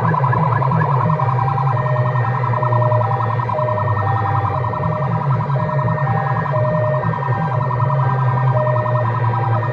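Loud music played through big DJ speaker boxes: a heavy bass with a pulsing beat under a siren-like, beeping synth line.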